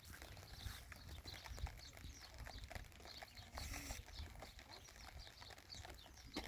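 Faint animal calls from farm livestock, short and scattered, over a steady low rumble.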